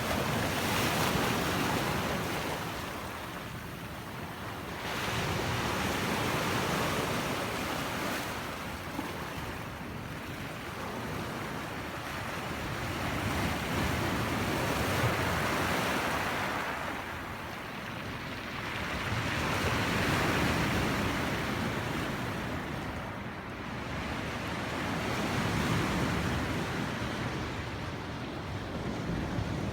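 Mediterranean sea waves washing in, a steady rushing that swells and eases about every five or six seconds.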